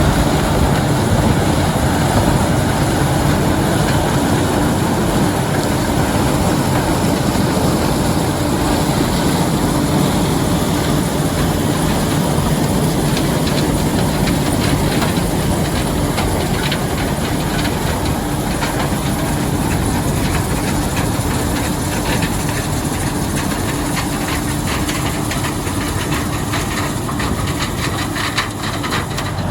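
White 7300 combine running under load while harvesting corn: steady engine drone mixed with the rattle and clatter of the threshing machinery.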